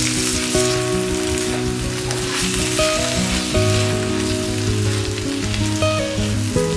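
Food sizzling as it fries in a pan, a steady hiss, with background music playing over it.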